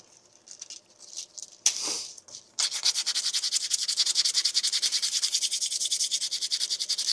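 Sandpaper rubbed by hand over the edge of a 3D-printed plastic claw: a short scrape about two seconds in, then steady, rapid back-and-forth sanding strokes from about two and a half seconds on.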